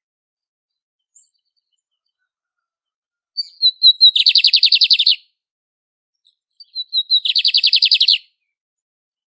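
Lined seedeater singing its song twice, starting about three seconds in: each song is a few short, high notes running into a fast trill lasting about a second.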